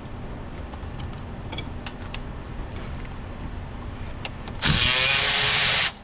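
A few faint clicks, then near the end a cordless power tool runs for just over a second, spinning out one of the 13 mm bracket bolts on a 5.7 HEMI engine. The motor's pitch rises as it runs.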